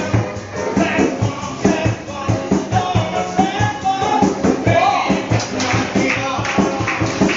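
A song with a steady beat and a voice singing the melody over the instrumental backing.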